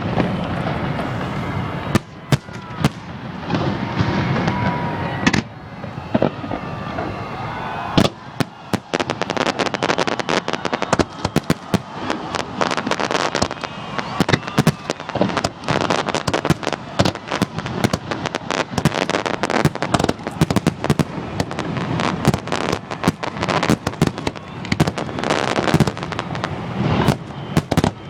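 New Year's fireworks display going off overhead: repeated sharp bangs of shells bursting, becoming a dense, rapid crackling barrage about a third of the way in that continues to the end.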